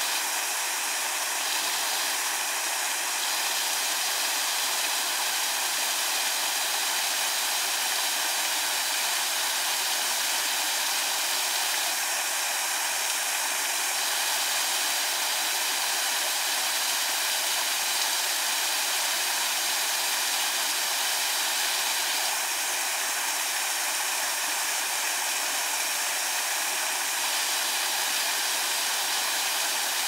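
Small garden waterfall: a thin sheet of water pouring over a stone ledge and splashing onto rocks into a shallow pool, a steady, even rush of falling water.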